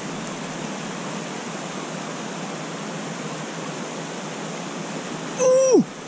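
Steady rush of a small mountain-creek cascade spilling into a pool. A man's short exclamation with a falling pitch comes near the end.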